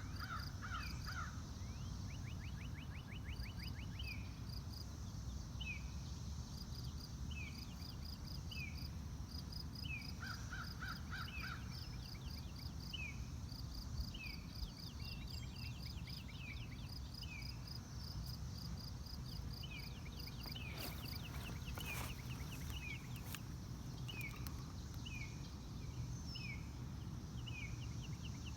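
Outdoor field ambience: birds calling, one repeating a short downward-sliding note about once a second among quick high chirping trills, over a steady low rumble.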